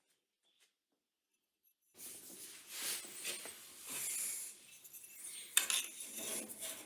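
Silent for the first two seconds, then hand work on metal: irregular scraping and rubbing strokes with light clinks, and one sharp click late on.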